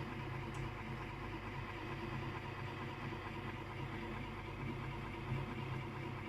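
Electric motor of an Adler electric typewriter running with a steady, even drone full of overtones. It is an unusual sound for the machine, and resembles an idling diesel locomotive or rail draisine.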